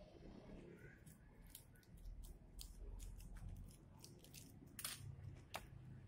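Vinyl cutting-sticker sheet being handled and peeled by hand: a scatter of faint, sharp crackles and ticks, thickest in the second half.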